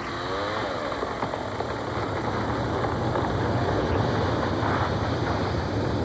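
Chainsaw engine running steadily as it cuts into a tree, its pitch wavering near the start.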